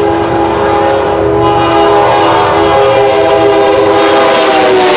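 CN diesel freight locomotive's air horn blowing one long, loud multi-note chord, with the locomotive's engine humming low beneath it. Near the end the chord begins to drop in pitch as the locomotive reaches the listener.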